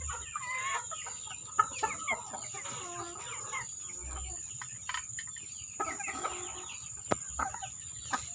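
Chickens clucking, a run of short calls that bend up and down in pitch, with a few sharp clicks or knocks, the loudest about one and a half seconds in and another near the end.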